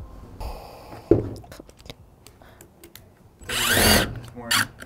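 Power driver whirring in short bursts, its pitch rising as it spins up, backing out the bolts of a steering wheel. A sharp knock comes about a second in, with a few light clicks after it.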